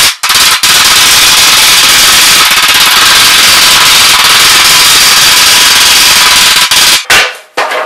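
Hand hammer striking the seams of a galvanized sheet-metal plenum, the blows sped up so they run together into a continuous loud metallic clatter. It stops about seven seconds in, leaving a few separate knocks.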